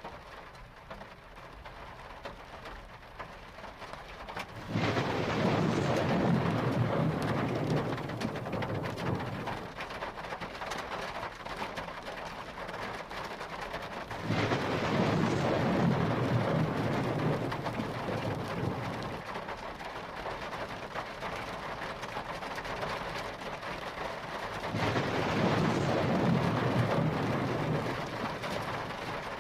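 Steady rain falling, with three long rolls of thunder that rise sharply and rumble for several seconds each, about five, fourteen and twenty-five seconds in.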